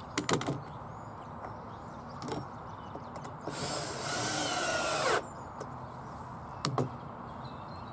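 Cordless drill driver running for about a second and a half a little past the middle, driving a screw into timber, its pitch falling as it goes. A few sharp clicks and knocks near the start and again near the end.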